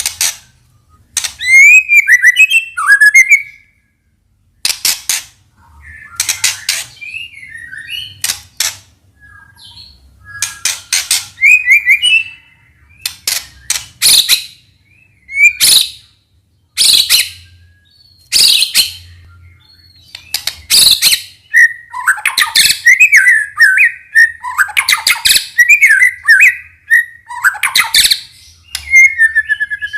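White-rumped shama (murai batu) singing loudly: short sharp calls repeated throughout, mixed with bursts of rapid warbling phrases.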